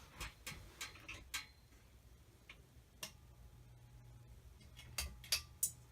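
A few sharp clicks and taps at irregular intervals, with a faint steady hum setting in about a second and a half in.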